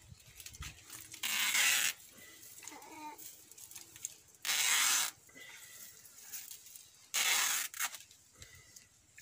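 Insect-screen mesh rustling loudly as it is unfolded and shaken out, in three separate bursts of less than a second each, about a second in, midway and near the end.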